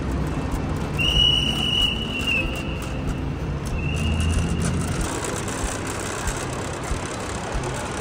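A whistle blown in two long, steady blasts, the second shorter, from a traffic marshal directing cars over the constant rumble of road traffic.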